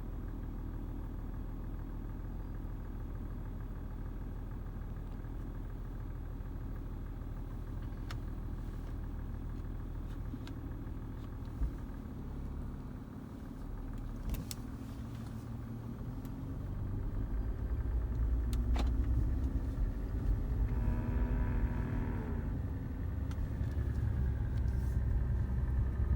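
Jaguar XJ's engine running steadily inside the cabin, getting louder about two-thirds of the way in, with a few brief squeaks from under the dashboard.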